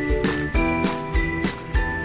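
Upbeat background music with a steady beat, about one beat every half second or so, and bright tinkling percussion.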